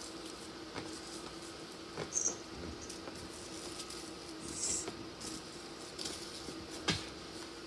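A kitten batting and pawing a small fabric toy ball on carpet: scattered soft taps and rustles, with a sharper knock about seven seconds in, over a steady low hum.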